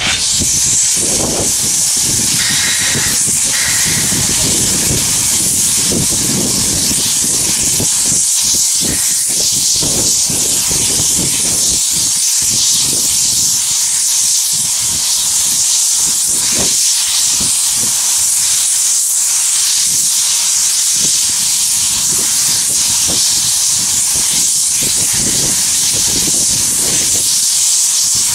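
Steam locomotive No. 9, a 1923 Montreal Locomotive Works 0-6-0 switcher, venting steam low at the front of the engine: a loud, steady hiss that starts suddenly and holds without a break, with an uneven low rumble underneath.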